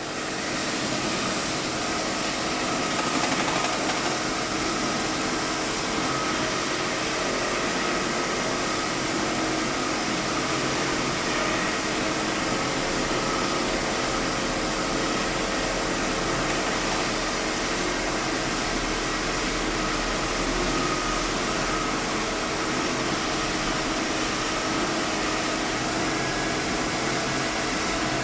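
Diamond wire saw cutting concrete: a steady machine whir with a few held tones, running without let-up.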